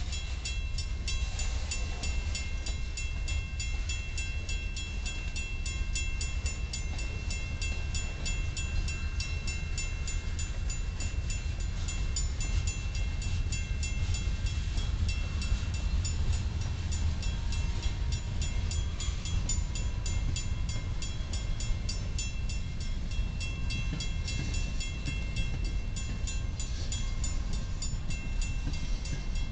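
Freight train cars (covered hoppers, coil cars and tank cars) rolling past with a steady low rumble. Above it runs a fast, even ringing, from the grade-crossing bell.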